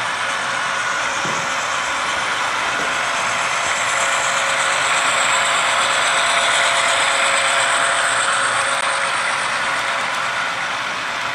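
HO-scale model train running along the layout track: a steady mechanical whir and rattle of motor gears and metal wheels on rail. It grows somewhat louder through the middle as the train passes close, then eases off.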